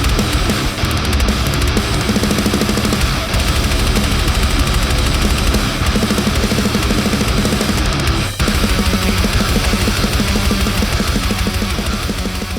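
Heavy metal music: heavily distorted guitar riffing with fast chugs over a drum kit, loud and dense, with a brief break about eight seconds in.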